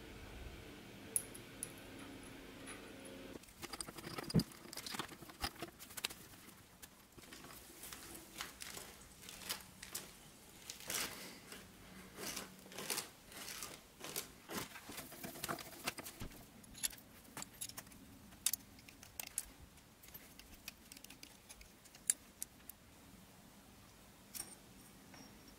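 Metal parts being handled and set into a machine vice: irregular clinks, taps and scrapes as a steel ball screw and a soft jaw are laid against the vice, thick at first and sparser later. A faint steady hum in the first few seconds stops suddenly.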